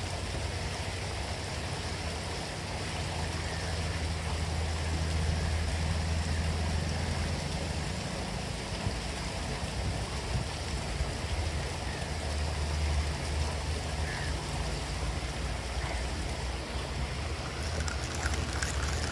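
Steady outdoor background noise: a low hum or rumble under a constant hiss, swelling a little in the middle, with a faint bird chirp or two.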